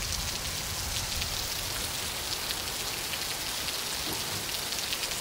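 Heavy rain falling steadily: an even hiss of rain on surfaces with fine drop patter.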